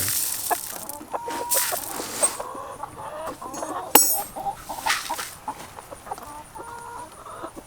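Chickens clucking in short, scattered calls, with a sharp knock about four seconds in.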